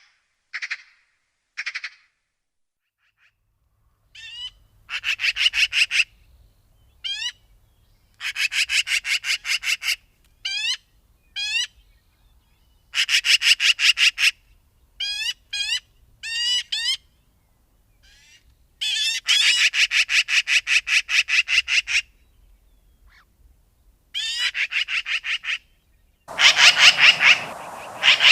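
Magpie chattering: a series of harsh rattling bursts, each a rapid run of about ten notes a second lasting one to three seconds, separated by short pauses and a few single notes. Near the end the chatter is louder, with a hiss behind it.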